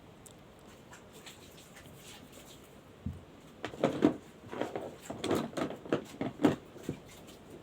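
A single thump about three seconds in, then a quick, irregular run of knocks and clicks lasting about three seconds.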